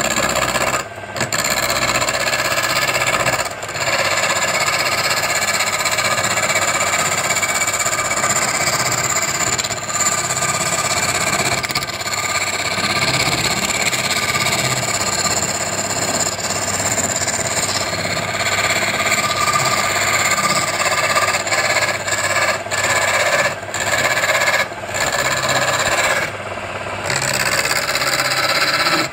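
Wood lathe running while a hand-held turning chisel cuts into the spinning wooden cylinder: a continuous, loud scraping hiss of the cut over the motor's low hum. The cutting noise breaks off briefly a few times where the tool eases off the wood.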